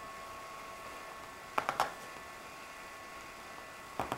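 Two cats wrestling on a fabric sofa: two brief clusters of scuffling and rustling, about a second and a half in and again near the end, over a steady electrical hum.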